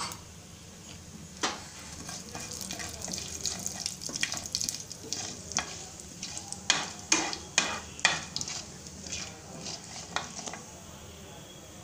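Cumin and mustard seeds sizzling in hot oil in a pan while a wooden spatula stirs them, with a steady hiss and many sharp clicks and pops, densest between about four and eight seconds in.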